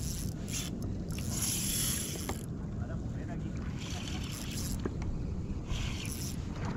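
Wind rumbling on the microphone, with water splashing and swishing against a kayak's hull in short hissy spells every second or so.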